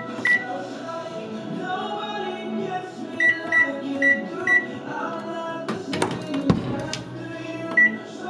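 Whirlpool top-load washing machine's control panel beeping as its buttons are pressed: short, high single beeps, one just after the start, four in quick succession about three to four and a half seconds in, and one near the end. A few sharp clicks and a low knock come about six seconds in, over background music.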